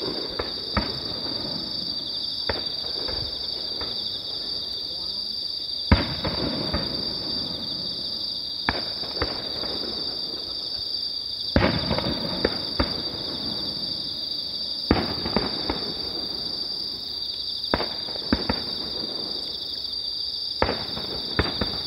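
Distant fireworks shells bursting: sharp booms every one to three seconds, often two or three close together, followed by crackle, the loudest bang about six seconds in. A steady chorus of insects chirring underneath.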